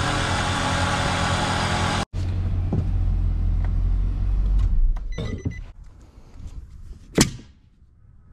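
A loud steady whirring noise cuts off about two seconds in. A pickup truck's engine then idles with a low rumble and stops about halfway through as the push-button start/stop is pressed, followed by a brief electronic tone and one sharp knock near the end.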